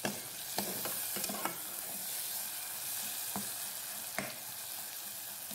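Chopped tomato with onion and spices frying in hot oil, a steady sizzle, while a spatula stirs and scrapes the pot with a few sharp knocks against its side. The tomato is being cooked down until soft.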